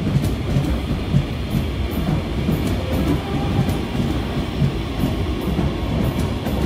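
Electric commuter train passing close by at a station platform: a steady rumble of the cars with repeated light clicks of wheels over the rails.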